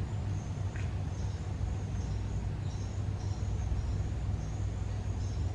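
Steady low rumble of traffic crossing the concrete bridge overhead, with faint high chirping and a short faint tick about a second in.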